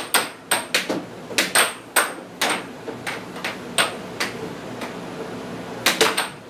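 Air hockey puck clacking sharply off the players' plastic mallets and the table rails in a fast, irregular rally, with a short lull and then a quick flurry of hits near the end, over a steady hiss.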